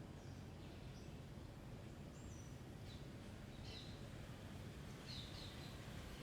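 Faint steady background hum with a few short, distant bird chirps scattered through it.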